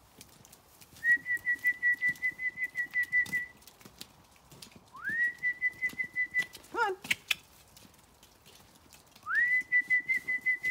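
A person whistling a trilled note three times, each about two seconds long, with a quick upward slide at the start and a fast flutter of about seven beats a second. A short falling animal call sounds between the second and third whistles.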